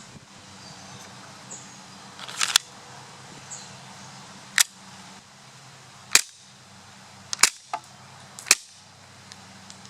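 Marushin CZ75 gas-blowback airsoft pistol firing on HFC134a duster gas: about five sharp cracks, one to two seconds apart, each with the slide cycling to throw out a plastic shell casing. Lighter clicks fall between some of the shots.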